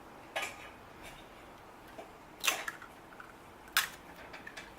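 An egg being tapped against the rim of a mixing bowl to crack it: three short, sharp knocks, the second and third louder.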